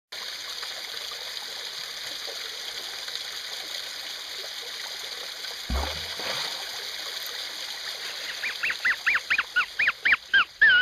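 Water of a small waterfall splashing onto rock and into a pool, a steady rush, with a dull thump about halfway. In the last few seconds a rapid run of high calls, each rising and falling in pitch, comes about four a second and grows louder before the sound cuts off suddenly.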